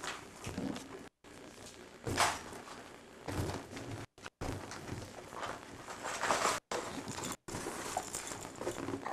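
Irregular scuffs, knocks and rustles of people and a baby moving about on a hard floor, with the sound cutting out completely for a moment several times.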